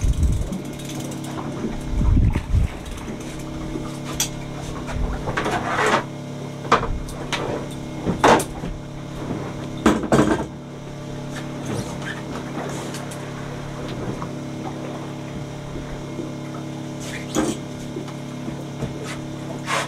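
Boat engine running with a steady hum, under scattered knocks and clattering of gear and handling at the rail as a big dentex is brought aboard; the loudest knocks fall about 2, 8 and 10 seconds in.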